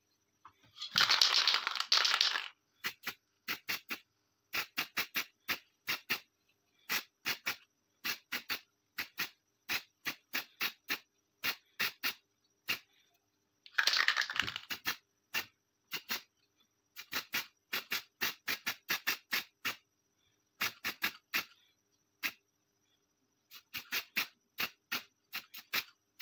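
Round hand file rasping on a bare metal pistol frame. There are two longer spells of steady scraping, about a second in and again about fourteen seconds in, and otherwise short quick strokes in runs of several, about four a second.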